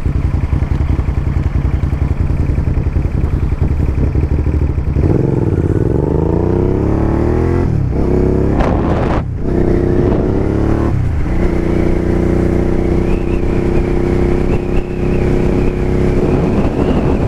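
Suzuki SV650N's 645 cc V-twin engine idling for about five seconds, then pulling away. It revs up and drops in pitch three times as it shifts up through the gears, then holds a steady cruising note.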